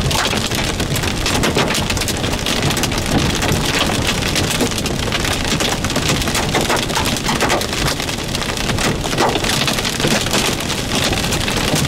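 Large hailstones and rain hitting the roof and hood of a moving vehicle, a dense, steady clatter of many impacts heard from inside the cab.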